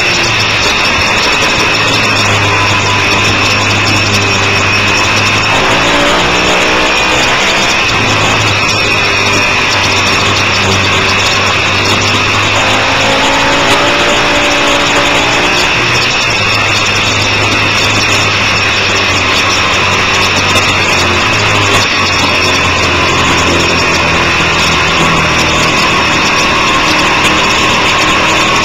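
Onboard sound of a sport motorcycle at speed on a racetrack: the engine runs hard under steady wind rush. Its note sweeps down and back up twice, about six and thirteen seconds in, as the rider brakes and accelerates through corners.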